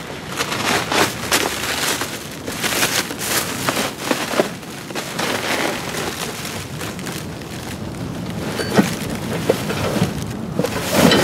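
Continuous rustling and crackling of packaging: a large block of expanding packing foam and its plastic sheeting being lifted and pulled out of a cardboard box, with small knocks against the cardboard.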